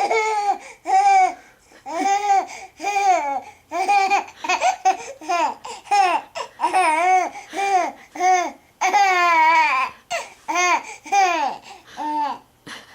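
A baby giggling in a long run of short, high-pitched laughs, one or two a second, with one longer drawn-out laugh near the end.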